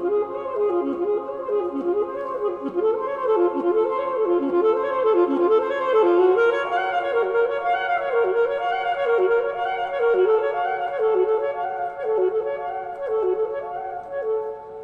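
A woodwind instrument playing a looping melody of short phrases that each dip down in pitch and repeat over and over.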